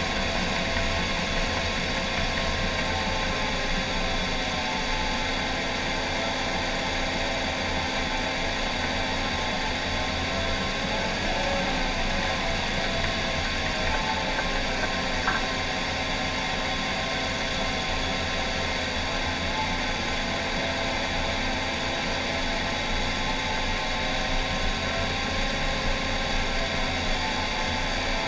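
John Deere 750K crawler dozer's diesel engine running steadily under load while the blade pushes dirt, heard from inside the cab. A short click sounds about fifteen seconds in.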